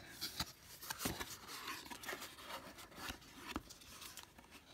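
Cardboard product box being opened by hand: flaps rustling and scattered light taps as a hand reaches in to pull out the packed speaker.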